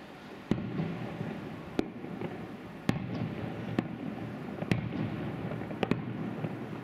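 Aerial firework shells bursting in a salute: about seven sharp bangs roughly a second apart, the last two close together, over a continuous rumble.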